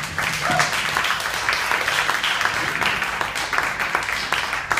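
Audience applauding, many hands clapping steadily throughout.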